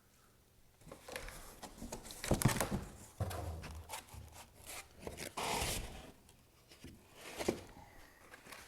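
Unboxing packaging being handled: irregular rustling, crinkling and scraping of paper, plastic and cardboard, with a short sharp click near the end.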